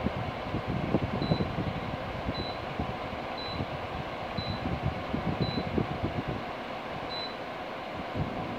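GE window air conditioner running in cool mode with its fan blowing steadily, while its control-panel buttons give short high beeps about once a second, six in all, as its settings are stepped. An uneven low rumble runs underneath.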